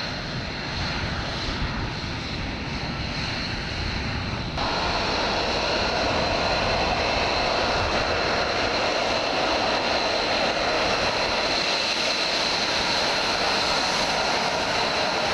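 F-35 Lightning II's single turbofan jet engine running. A lower rumble is followed, after a sudden change about four and a half seconds in, by a louder steady engine noise with a high whine on top.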